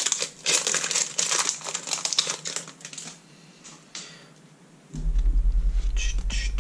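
Plastic wrapper of a trading-card booster pack crinkling as it is handled and opened, for about three seconds, then quieter. About five seconds in, a loud low hum with a regular pulse starts.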